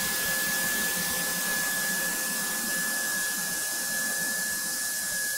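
Single-engine light aircraft taxiing, heard as a steady hiss of engine and cockpit noise with a steady high whine running through it.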